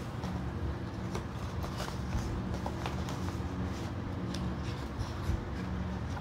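Paper pages of a K-pop album photobook being turned and handled: scattered short, crisp rustles and page flicks over a steady low hum.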